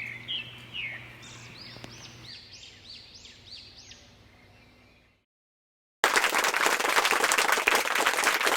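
A bird chirping in a quick series of short high calls, fading out to silence about five seconds in. About a second later loud applause starts abruptly and continues.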